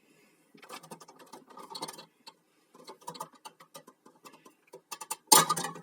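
Small clicks, taps and scrapes of parts being handled on a sewing machine's casing during disassembly, then a louder clatter about five seconds in.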